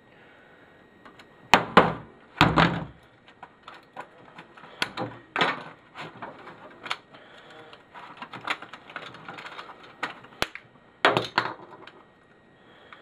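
Plastic printer parts being handled and pried apart by hand: irregular knocks, clunks and rattling, the loudest about one and a half and two and a half seconds in and again near the end.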